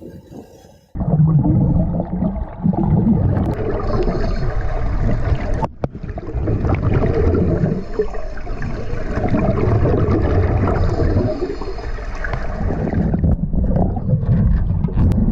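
Loud rushing, churning water that starts abruptly about a second in, breaks off briefly near the middle and dips near the end.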